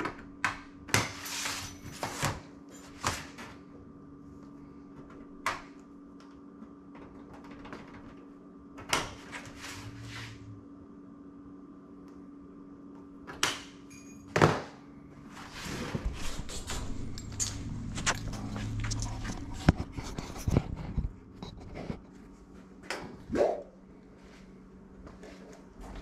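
Hand tin snips cutting galvanized sheet metal: a series of sharp snips and clanks, with a busier stretch of sheet-metal rattling and handling about two-thirds through. A steady hum runs underneath.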